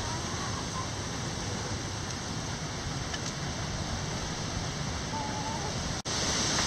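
Steady hiss of heavy rain over the chicken run, with two faint, short hen calls, one at the start and one about five seconds in. The sound drops out for an instant about six seconds in, then the rain comes back louder.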